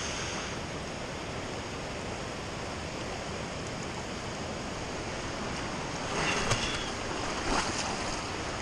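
Steady rush of flowing creek water, with a couple of brief splashes about six and seven and a half seconds in.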